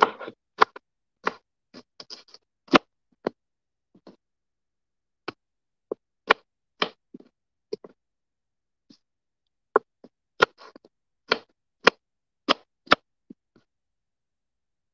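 Kitchen knife chopping petchay (bok choy) on a wooden cutting board: single sharp knocks at an uneven pace, roughly one or two a second, pausing for a couple of seconds partway through and stopping shortly before the end.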